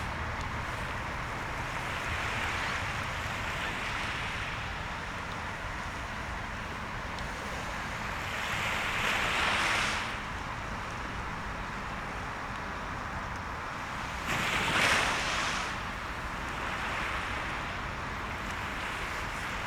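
Sea waves washing onto the shore in a continuous surf, swelling louder twice, about nine and fifteen seconds in, with some wind rumbling on the microphone.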